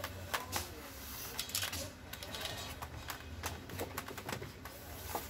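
Utility knife cutting LCD polarizer film on a foam pad: irregular scratchy clicks and short scraping strokes.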